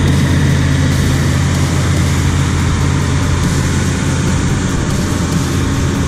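Caterpillar 120H motor grader's diesel engine running steadily at close range as the grader drives past, a loud, deep drone that eases slightly near the end.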